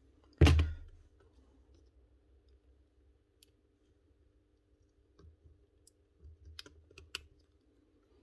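Clicks and knocks of wires, spade connectors and the metal switch panel being handled on an opened magnetic drill, with one louder knock about half a second in and scattered small clicks later on.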